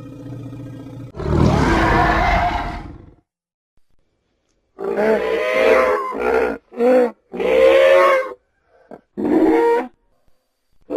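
Animal sound effects: a low drawn-out rumble, then a loud rough roar lasting about two seconds, and after a short pause a run of five or so short, pitched, honk-like cries.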